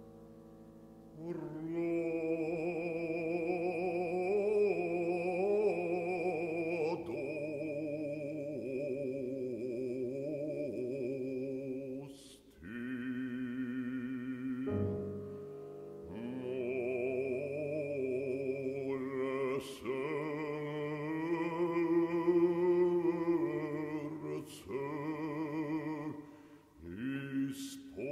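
A bass voice sings slow, sustained phrases with a wide vibrato in an art song to an Old Slavonic text, with short breaks between phrases. A piano note is dying away as the voice enters about a second in.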